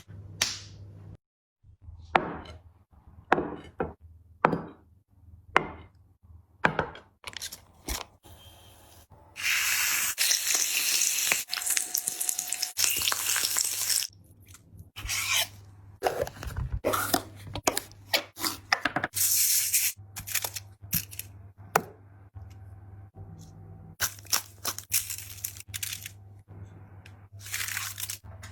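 Close-miked eating sounds: irregular crunches, clicks and smacks, with several longer noisy stretches, the longest starting about ten seconds in and lasting some four seconds.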